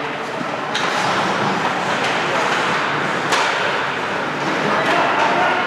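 Hockey arena crowd noise: many spectators' voices blended into a steady din, swelling slightly about a second in, with two sharp knocks, one about a second in and one near three and a half seconds.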